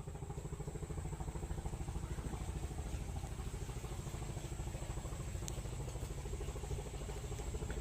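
An engine idling steadily, its exhaust beating in a fast, even pulse.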